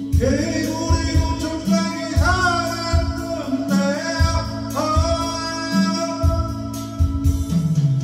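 Music: a man singing a Korean song, holding long notes that slide between pitches, over a backing track with guitar and a steady beat.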